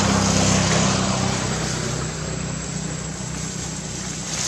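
An engine droning steadily, loudest about half a second in and slowly fading, with a thin steady high whine above it.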